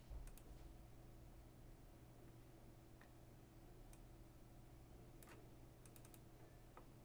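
Near silence over a low steady hum, broken by faint computer mouse clicks: a few single clicks spread through, and a quick run of three about six seconds in.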